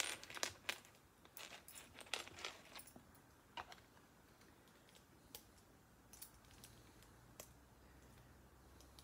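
Small plastic Lego pieces clicking and tapping as they are handled and pressed onto the build. A quick run of clicks comes first, then single clicks every second or so.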